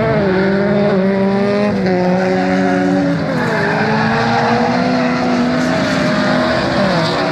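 Several folkrace cars' engines running hard around the track at once, their pitch rising and falling as they accelerate and lift off, with a clear dip in pitch about three seconds in.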